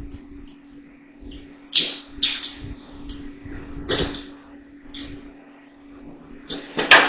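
Parts of a Shark vacuum cleaner being handled and pulled apart during a teardown: a run of sharp clicks and scrapes of plastic and wire, the loudest near the end, over a steady low hum.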